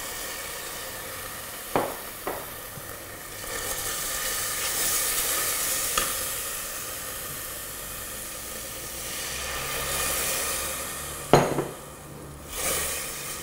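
Sauce and oil sizzling in a stainless pressure cooker pot with fried garlic, shallots and chilli, stirred with a wooden spoon that knocks against the pot a few times, loudest once near the end. The sizzle swells and fades as the stirring goes on.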